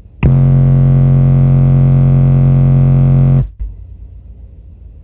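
Car subwoofers driven by a Power Acoustik RZR1-2500D amplifier playing a 45 Hz test-tone burp: one steady, very loud tone about three seconds long that starts abruptly and cuts off sharply.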